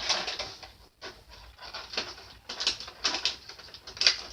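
Cardboard and plastic packaging being handled, with irregular crinkles and scrapes as pieces are pulled out.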